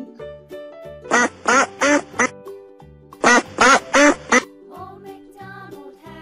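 Duck quacking in two quick runs of three or four loud quacks each, the second run about a second after the first.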